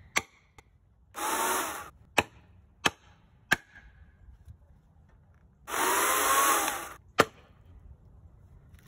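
A hammer knocking a plastic felling wedge into a chainsaw cut: about five sharp taps, the loudest near the end. Twice, a corded electric chainsaw's motor runs in short bursts of about a second each, one early and one past the middle.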